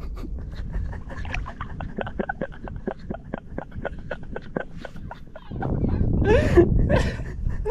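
A quick, irregular run of clicks and knocks over a low rumble, then a man's voice groaning in rising and falling pitch over louder rumble near the end.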